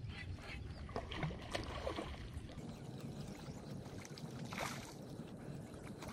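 Low steady wind and water rumble on a fishing boat, with scattered light clicks and a brief hiss about four and a half seconds in.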